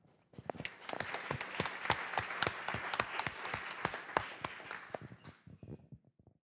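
Audience applauding: the clapping starts just after the start, holds steady, then thins out to a few scattered claps and dies away near the end.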